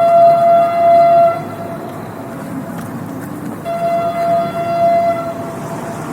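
Train horn blowing a long, loud blast, then a second blast a couple of seconds later, over the steady rumble of the train.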